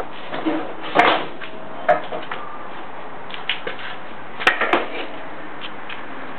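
A few sharp knocks and clatters of objects being handled and moved about, loudest about a second in and again near the five-second mark, over a steady background hiss.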